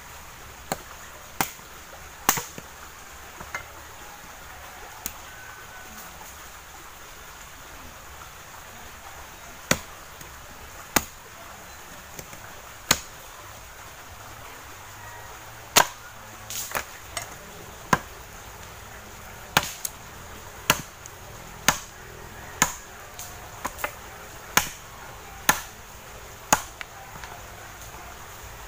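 Machete chopping a thin branch against a wooden plank, cutting it into firewood lengths: sharp, separate chops, a few at first, then a pause of several seconds, then about one a second through the second half.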